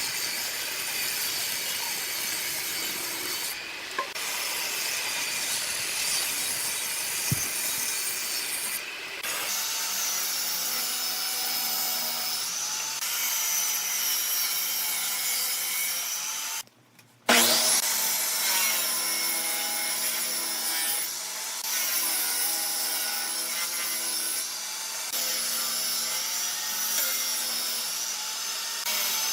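Power tool cutting or shaping wood: a steady rasping noise with a faint motor whine that drifts in pitch, broken once by a short gap about two-thirds of the way through.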